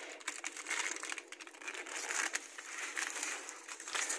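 Aluminium foil tape crinkling and crackling as it is handled and pressed flat along a window frame: a run of small, irregular crackles and rustles.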